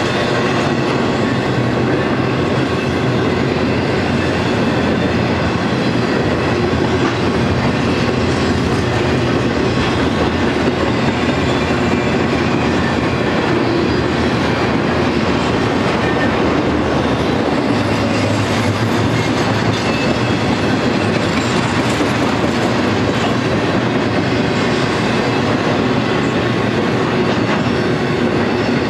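Freight train cars loaded with trailers and containers rolling steadily past: continuous, loud noise of steel wheels on the rails.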